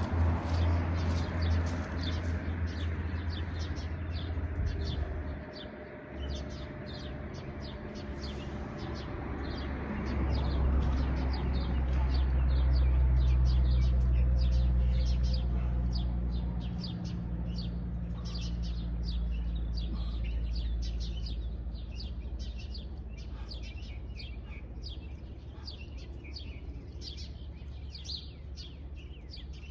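Small birds chirping over and over in the early morning, with a low rumble underneath that swells in the middle and then slowly fades.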